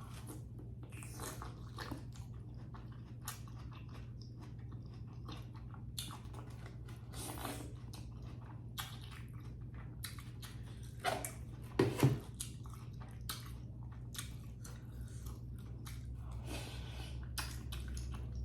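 Close-up chewing of a cooked green-lip mussel, with wet mouth clicks and smacks as she works through its chewy end, and a couple of louder mouth noises about twelve seconds in. A low steady hum runs underneath.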